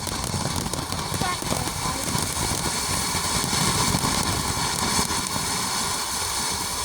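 Phantom Serenity Noiseless firework fountain spraying sparks with a steady hiss and light crackle.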